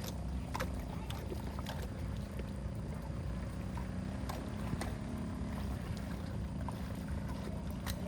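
Water rushing steadily, a low continuous rumble with scattered small splashes and clicks on top.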